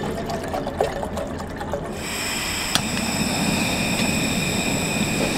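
Water poured from a plastic bottle into a small camping kettle, trickling and glugging. About two seconds in, a gas camp stove's burner comes on with a steady hiss, and a single sharp click follows shortly after.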